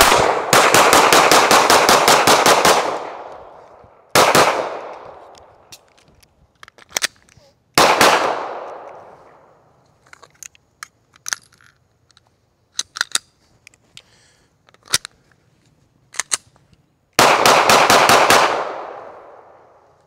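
Sig Sauer P320 XCompact 9mm pistol firing 147-grain Winchester Ranger T-Series defensive rounds. A rapid string of shots comes at the start, then single shots about four and eight seconds in, and another quick string near the end, each trailing off in a long echo. Quieter clicks and knocks fall in the pause between.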